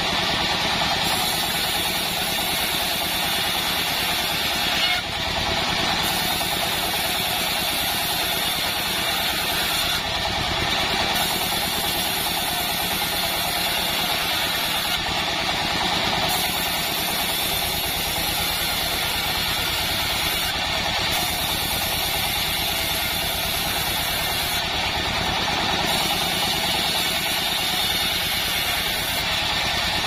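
Band sawmill running steadily, its motor and band blade droning as a board of hibiscus wood is sawn lengthwise, with a brief dip about five seconds in.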